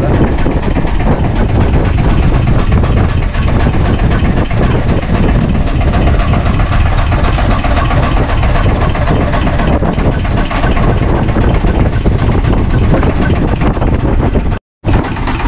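Strong wind buffeting the microphone: a loud, steady low rumble. It drops out for a moment near the end.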